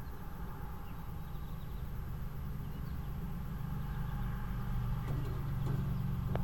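Low, steady rumble of a road vehicle's engine, growing gradually louder as it approaches.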